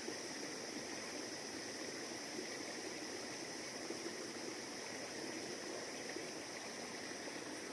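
Steady, low rush of flowing stream water.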